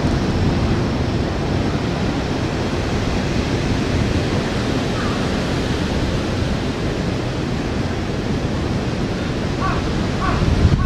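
Strong gusty wind rushing and buffeting the microphone, a steady rough roar heavy in the low end.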